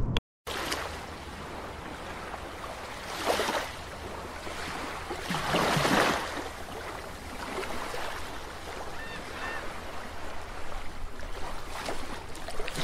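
Ocean-wave and surf sound effect, a steady wash that swells twice into whooshes, about three and six seconds in, with a few faint short chirps later on.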